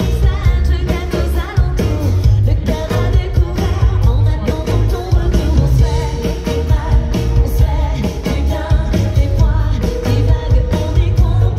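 Live pop-rock band: a woman singing lead into a microphone over electric guitar, bass guitar and a drum kit, recorded from within the crowd. The mix is loud and heavy in the bass, with a steady drum beat.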